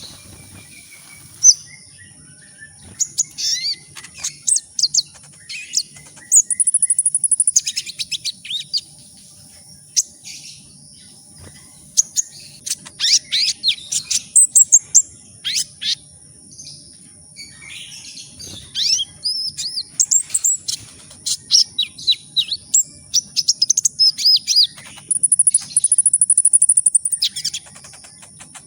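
Kolibri ninja sunbird singing: rapid, high-pitched chirps, sweeping notes and fast buzzy trills in quick bursts with short gaps. A faint steady high whine runs underneath.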